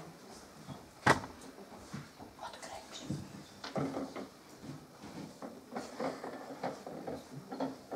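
Paper handling at a table: sheets rustling and being sorted, with scattered small clicks and knocks and one sharp knock about a second in.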